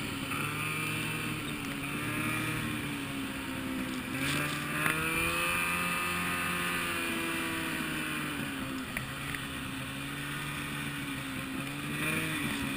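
Turbocharged Ski-Doo XM snowmobile engine running under load through deep snow, its pitch rising and falling as the throttle is worked.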